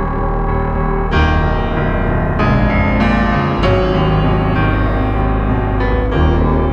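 Background piano music: sustained chords with a new chord or notes struck every second or so.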